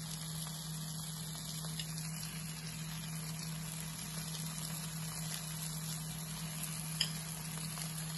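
Sausage-meat patty with melted cheese sizzling steadily on an electric griddle, over a steady low hum. A single light tap about seven seconds in.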